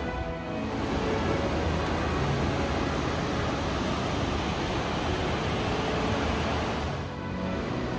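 Steady roar of the Mesa Falls waterfall on Henry's Fork of the Snake River, a dense rush of falling water. It dips briefly near the start and again near the end, where faint music shows through.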